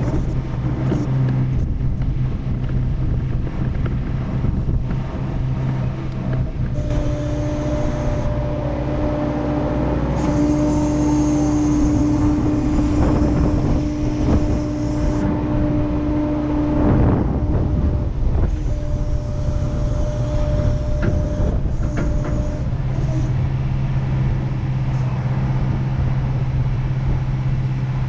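Excavator diesel engine running steadily. A higher, steady whine joins it for about fifteen seconds in the middle, as the hydraulics work the tilt-rotator and boom, then drops away, leaving the low engine hum.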